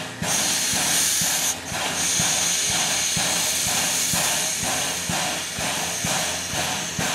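NZR AB-class steam locomotive venting steam: a loud, steady high-pitched hiss that starts a moment in and dips briefly about a second and a half in, with a soft regular knocking underneath, about two to three beats a second.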